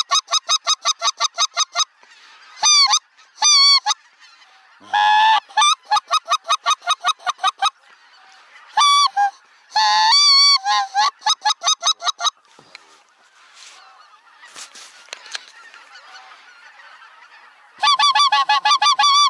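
Goose honking: runs of quick, evenly spaced high calls, several a second, in loud bursts with short gaps between. The calls fade to a fainter stretch about two thirds of the way through, then come back loud near the end.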